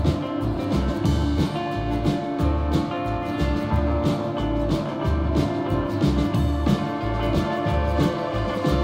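Instrumental background music with a steady drum beat and a bass line.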